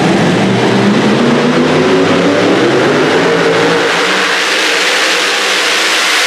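Super modified four-wheel-drive pull truck's supercharged engine running at high revs under full load as it drags the weight-transfer sled, its pitch wavering and rising over the first few seconds. The deep part of the sound drops away about four seconds in as the truck moves off down the track.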